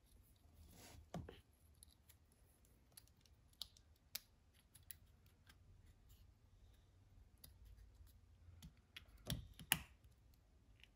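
Faint, scattered clicks and taps of the parts of an old boat horn push-button switch being fitted back into its small metal housing by hand, with two louder clicks close together near the end.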